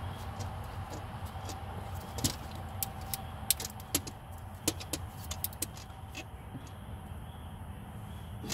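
Hand tools clicking and clinking against metal while working on a car's starter and its wiring: irregular sharp metallic ticks, a few louder ones in the middle, over a steady low rumble.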